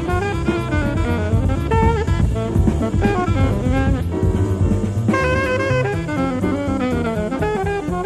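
Jazz quartet playing bebop: alto saxophone carrying a line of quick runs over piano, bass and drum kit. Heard off a cassette recording of an FM broadcast.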